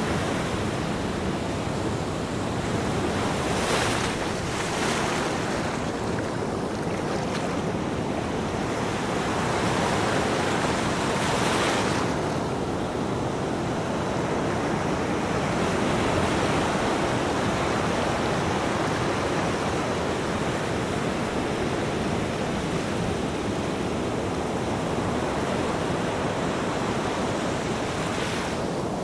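Ocean waves breaking and washing up a beach, a continuous surf noise with a few louder hissing breakers, one about four seconds in and another at about twelve seconds.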